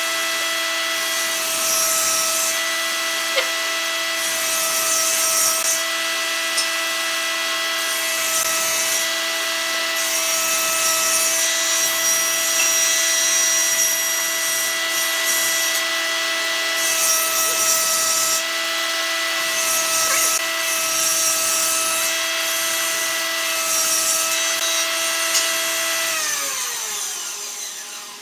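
A machine motor runs steadily with a constant hum, then near the end is switched off and winds down, its pitch sliding away. Over it come intermittent rasping swishes of rope being drawn through the drilled holes of a wooden chair's seat frame.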